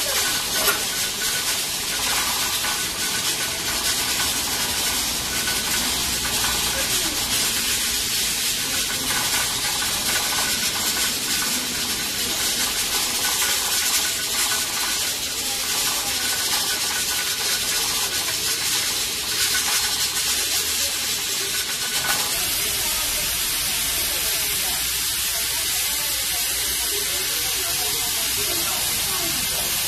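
Hotteok frying in oil on a flat griddle: a steady sizzle of hot oil around the pressed dough.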